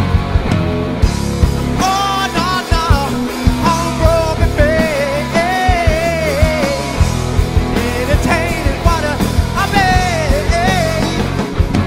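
A rock band plays live: electric guitars, electric bass and a drum kit with Zildjian cymbals, with steady drum and cymbal hits. From about two seconds in until near the end, a melody line bends and wavers in pitch above the band.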